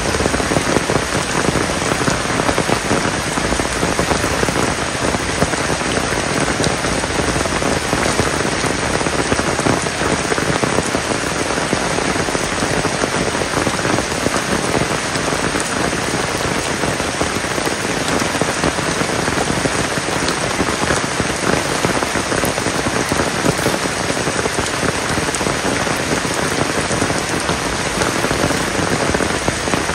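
Heavy rain falling steadily, an even hiss of countless drops at a constant level with no letup.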